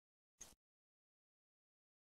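Near silence, broken once by a brief faint sound about half a second in.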